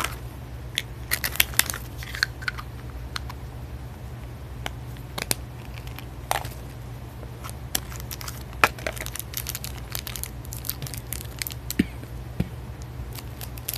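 Foil blind-bag packaging crinkling and being torn open by hand, in irregular sharp crackles. A steady low hum runs underneath.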